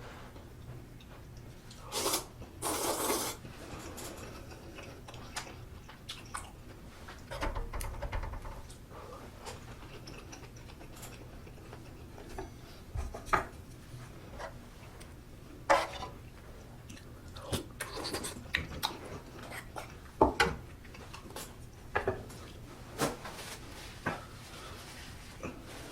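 Close-miked eating of budae-jjigae (spicy sausage stew): two short noisy bursts of slurping about two seconds in, then chewing with many sharp clicks of utensils against the dishes, spaced irregularly in the second half.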